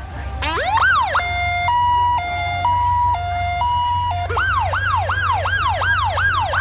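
Electronic emergency-vehicle siren switching through its patterns: a single rising whoop, then a steady two-tone high-low alternation for about three seconds, then a fast rising-and-falling yelp about three times a second. A low engine rumble runs underneath.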